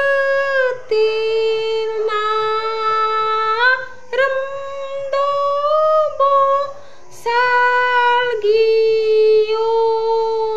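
A woman singing a slow hymn in Garo, solo, holding long steady notes in phrases, with short breaks for breath a few times.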